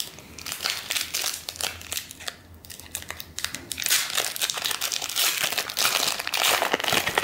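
Foil trading-card pack wrapper crinkling as it is handled and opened by hand, the crackling growing denser and louder from about four seconds in.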